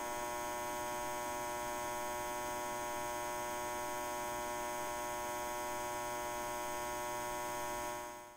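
Steady electrical hum, a neon-sign style buzzing sound effect, fading out near the end.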